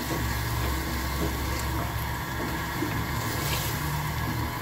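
Wooden spoon stirring beef korma in a pot with freshly added water, the watery gravy sloshing, over a steady low hum.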